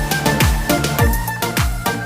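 Background music with a steady electronic beat: a deep kick drum with sliding bass about twice a second, crisp percussion hits and a held synth melody.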